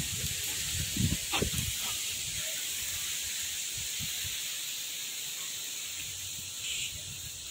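A steady high hiss, with a few soft bumps and rustles in the first two seconds.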